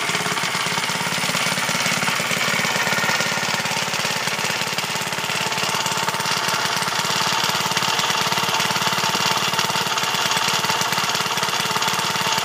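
Montgomery Ward E2 Hummer air-cooled kick-start engine running steadily, with rapid, even firing and no missed beats.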